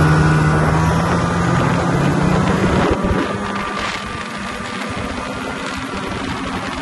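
Snowmobile engine running under way, with track and wind noise. About three seconds in, the steady engine hum fades and the sound turns quieter and rougher.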